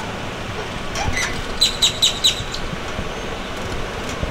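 A bird calling: four quick, high-pitched chirps about a second and a half in, roughly four a second, over steady outdoor background noise.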